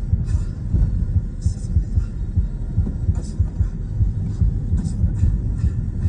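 Low, uneven road and engine rumble inside a moving car's cabin, with a few faint high ticks scattered through it.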